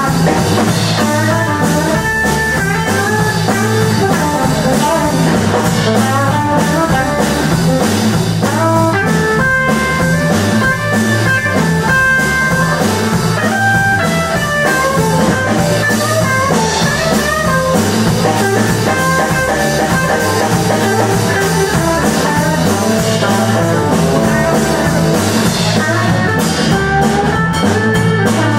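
Live blues-rock band playing an instrumental passage: a guitar carries a busy melodic line of quick notes over bass and drum kit, with cymbal hits growing stronger near the end.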